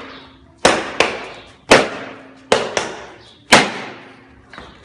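Police baton striking the hard shell plates of a riot-control armor suit: six sharp, loud whacks in about three seconds, some in quick pairs, each ringing briefly.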